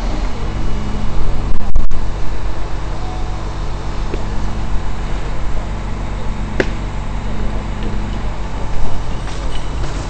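An engine idling steadily, with wind buffeting the microphone, hardest about two seconds in. A single sharp click about two-thirds of the way through.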